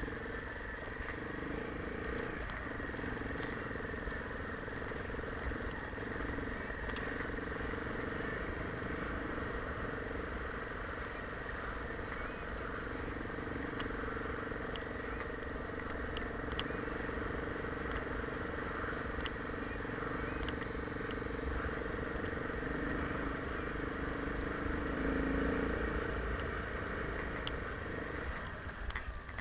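Enduro dirt bike engine running steadily at low revs while riding through snow, with scattered small clicks. The revs rise briefly near the end.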